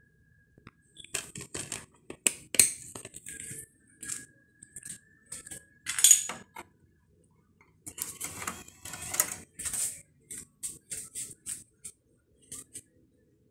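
Hard plastic clicks and rattles of a DVD case being handled and a disc taken out, then the disc sliding into an Xbox One's slot-loading drive about six seconds in, the loudest moment. A run of short clicks and rattles follows.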